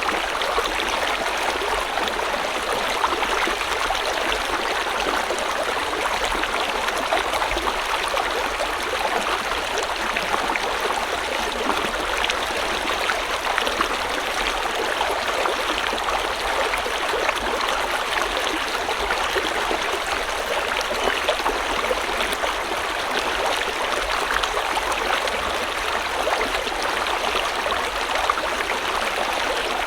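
A small river or stream flowing steadily over stones, with a continuous even rush and light splashing.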